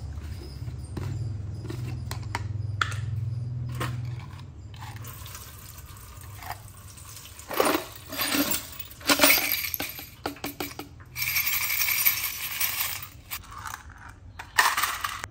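Small metal gears and dirty cleaning liquid poured from a plastic jar through a wire mesh basket into a steel tray, splashing and clinking in two spells about halfway through, with a sharp metal clatter near the end. A low hum runs under the first few seconds.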